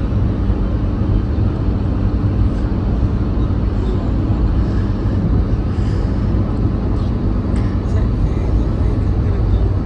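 Steady low road and engine rumble inside the cabin of a vehicle driving at highway speed, with tyre noise.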